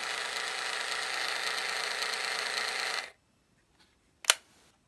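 Konica Big Mini VX compact film camera's built-in motor whirring steadily for about three seconds, then stopping abruptly. A single sharp click follows about a second later.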